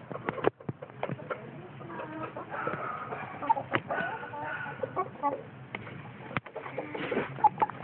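Several chickens clucking close by, short overlapping calls, with scattered sharp clicks.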